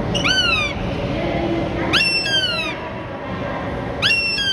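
Young northern goshawk calling: three short bursts about two seconds apart, each a quick run of high, falling notes.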